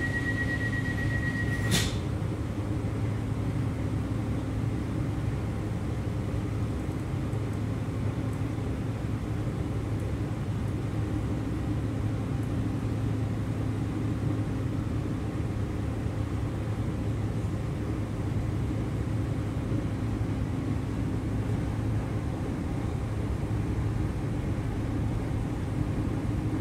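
Steady rumble and hum inside an EG2Tv Ivolga electric train. For the first two seconds a rapid high beeping sounds, ending in one sharp knock.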